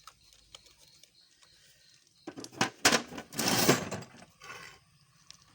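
A few sharp knocks, then a short scraping, sliding noise about three and a half seconds in, as hard objects are handled and moved on a work surface.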